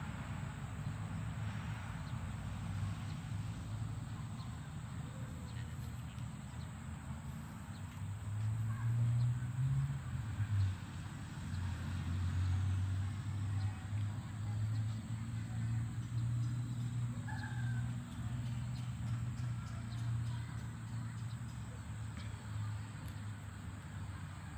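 Cattle mooing, long low calls, loudest from about eight seconds in to about twenty-one seconds in, with chickens clucking faintly now and then.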